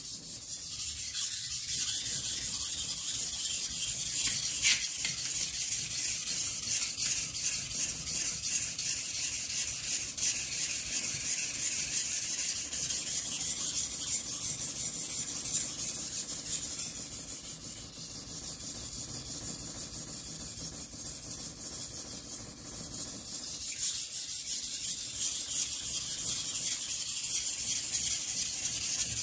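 Steel kitchen knife blade being sharpened on a whetstone: quick, continuous back-and-forth scraping strokes, a little softer for several seconds past the middle.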